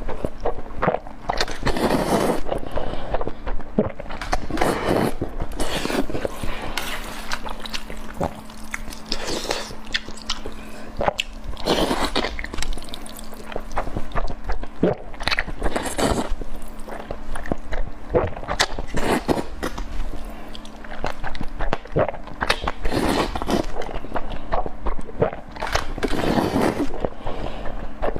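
A person biting and chewing food close to the microphone, with many irregular crunchy, wet mouth sounds, over a faint steady hum.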